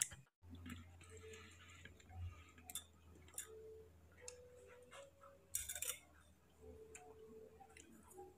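Near-silent room tone with a faint low hum, scattered light clicks and a short rustle about five and a half seconds in.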